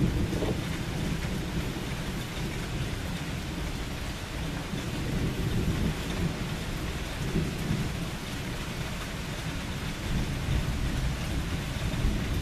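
Steady rain falling, with low thunder rumbling beneath it and swelling a few times: near the start, around the middle and near the end.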